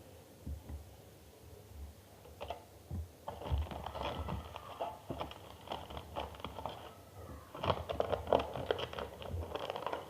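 Hands handling materials at a table: a few soft knocks, then from about three seconds in a dense run of small crackling and crinkling clicks.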